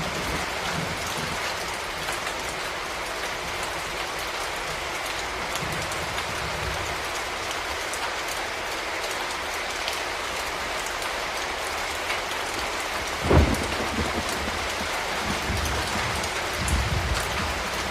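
Steady rain falling and pattering on surfaces, with a short low thump about two-thirds of the way through and some low rumbling near the end.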